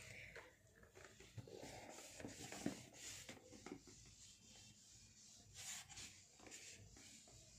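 Faint rubbing of a whiteboard being wiped clean with a handheld eraser, in uneven strokes with a few light knocks.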